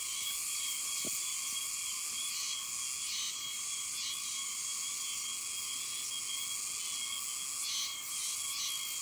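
A chorus of many insects shrilling steadily, high-pitched, with one thin high tone held through it.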